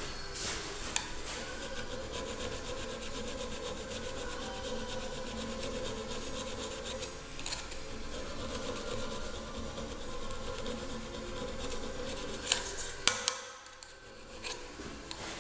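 Hand file rasping in steady back-and-forth strokes across a silicon bronze weld on a steel blade clamped in a bench vise, filing the weld down flush. Near the end a few sharp metallic clicks come, then a short pause before filing resumes.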